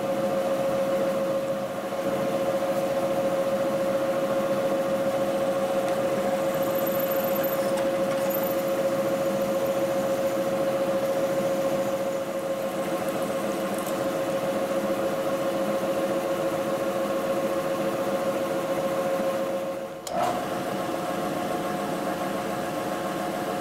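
Milling machine spindle running with a steady whine while drilling a hole for a 3/8-16 tap. About twenty seconds in there is a sharp click and the whine steps slightly higher.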